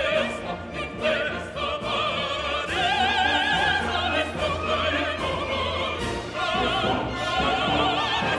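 Operatic singing in a high voice with wide vibrato over an orchestra, music on the soundtrack.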